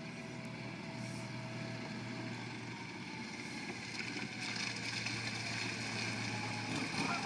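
Argo amphibious ATV's engine running steadily as it travels across water, with a rushing noise that grows louder in the second half.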